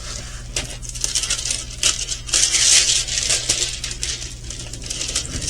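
Crinkling plastic packaging and small hard plastic pieces clicking as a diamond painting kit is handled, the rustling loudest about halfway through.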